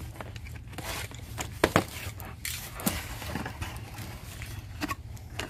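Box cutter slitting the packing tape on a cardboard box, then the cardboard flaps pulled open and the plastic-wrapped contents handled. Rustling and scraping with a few sharp clicks, the loudest about a second and a half in.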